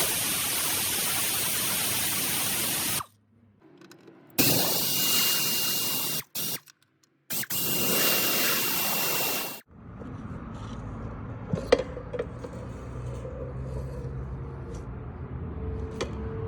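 Three long bursts of loud hissing spray, each cutting off sharply, followed by a steady low engine hum with a few sharp clicks.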